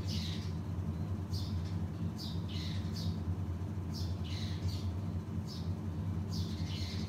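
Eurasian tree sparrows chirping: a dozen or so short chirps, each falling in pitch, coming irregularly about one or two a second. A steady low hum runs underneath.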